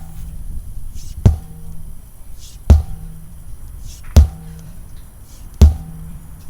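A 10 lb sledgehammer bashing a tire, one dull, heavy thud about every second and a half, in a steady rhythm of repeated strikes.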